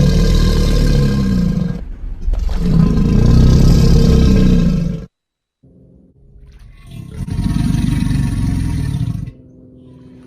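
Alligator bellow sound effects: three long, deep, rumbling growls, the first two nearly back to back and the third after a short gap. Near the end they give way to a quieter steady tone.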